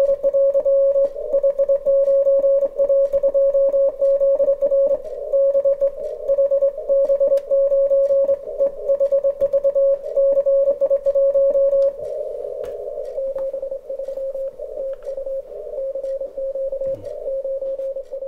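Morse code from an amateur radio transceiver on the 40-metre band: a single beeping tone keyed rapidly in dots and dashes. About twelve seconds in, the tone turns weaker and rougher as the keying goes on.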